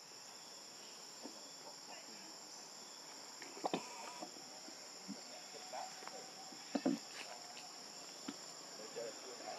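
A steady, high-pitched insect chorus, with a few soft rustles and taps about four and seven seconds in.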